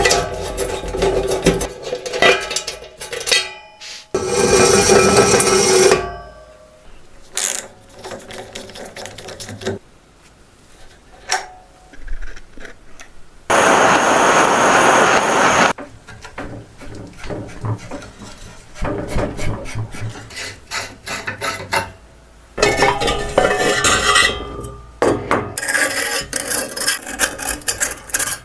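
Hand restoration work on the metal parts of a 1921 gas heater: scraping, rubbing and tapping in short, changing stretches, with a steady hiss lasting about two seconds midway.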